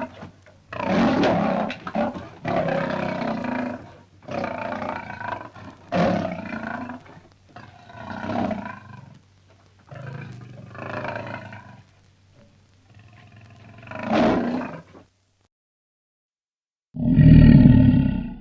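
A lion roaring: a bout of about eight drawn-out roars and grunts, each around a second long. After a short silence near the end comes a different lion's brief, loud, deep growl.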